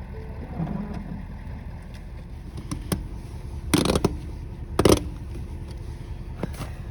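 Tire snow chains clanking twice, two short loud metallic rattles about a second apart, with a few faint clicks, over a low steady rumble.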